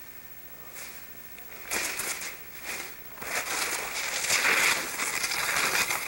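Snowboard sliding and scraping over crusty snow on a downhill run. A rough, crunching hiss swells about two seconds in and stays loud, surging as the board cuts across the slope.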